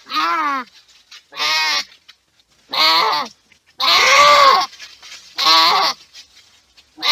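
Goat bleating over and over: about six short, wavering bleats a little over a second apart. The one about four seconds in is the longest and loudest.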